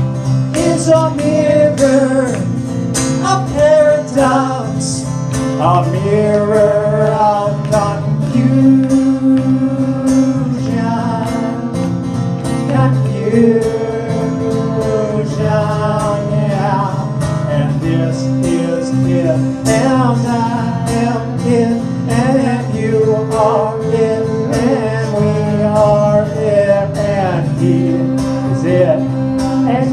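Live band music: guitars strumming and picking with voices singing a slow song.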